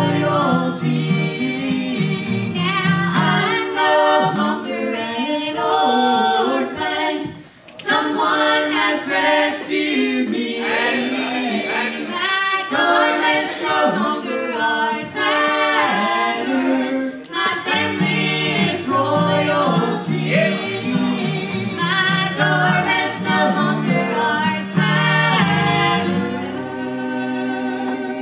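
A man, a woman and a girl singing a gospel song in harmony over a strummed acoustic guitar, with a brief pause about seven seconds in.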